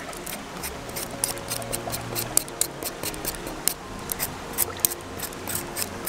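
A metal vegetable peeler scraping in quick strokes down a raw potato, each stroke a short sharp rasp, several a second. Soft background music underneath.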